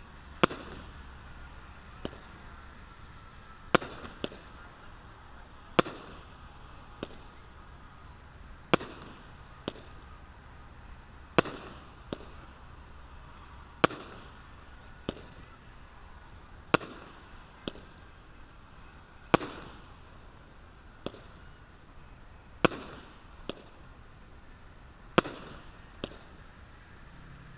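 Consumer 200-gram aerial repeater cake firing one shot at a time: a loud report roughly every two and a half seconds, each followed under a second later by a smaller one.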